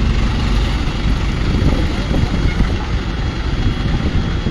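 Heavy diesel engine running steadily, a continuous low rumble with no changes in speed.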